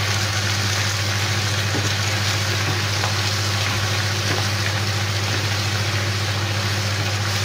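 Fresh spinach sautéing in a nonstick frying pan as it is stirred with a wooden spatula: a steady sizzling hiss over a constant low hum.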